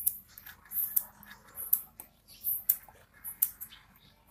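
Airsoft piston being worked by hand in its cylinder: irregular short puffs of air and plastic clicks, about two or three a second. It is the sign of a loose piston seal that lets air escape, the piston's compression not tight.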